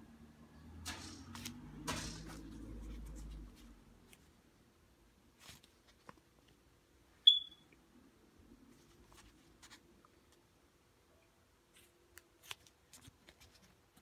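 Paper banknotes rustling and crinkling as they are handled and swapped, with a low rumble of hand noise in the first few seconds. About seven seconds in comes a single very short, high chirp, the loudest sound. Near the end there are a few faint clicks and rustles.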